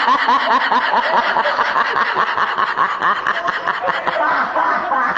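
Meme laughter sound effect: a loud, fast snickering laugh in short repeated pulses, several a second, that run on without a break.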